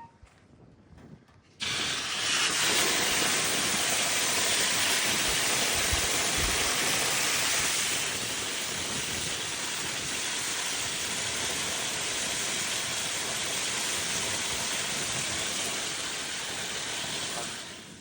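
A steady, loud hiss that starts suddenly about a second and a half in, holds without a break, and fades out near the end.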